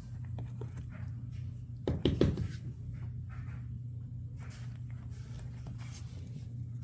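A quick cluster of knocks about two seconds in, over a steady low hum, with faint scattered clicks and taps.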